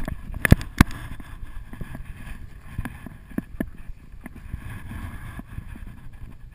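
Wind buffeting the camera's microphone: a steady low rumble. There are a couple of sharp knocks in the first second.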